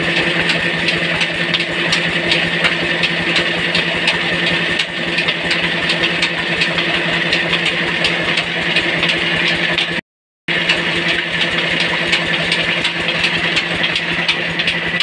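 Village flour mill (atta chakki) running while grinding grain into flour: a steady mechanical hum with a dense, rapid rattle of clicks over it. The sound cuts out for a moment about two-thirds of the way through.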